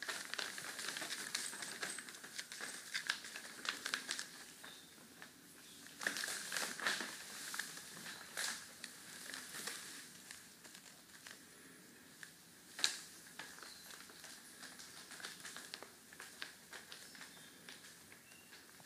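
Clear plastic floor sheeting crinkling and crackling under cats as they move and roll on it, in irregular bursts of crackles, with one sharper, louder crackle about thirteen seconds in.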